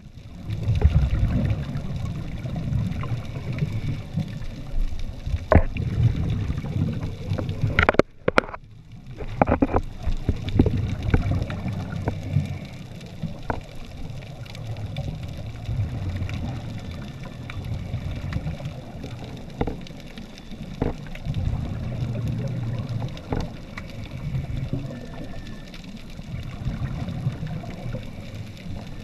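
Underwater sound heard through a camera housing: a muffled, surging low rumble of wave surge and water movement, with scuba regulator exhaust bubbles and scattered small clicks. The sound drops out briefly about eight seconds in.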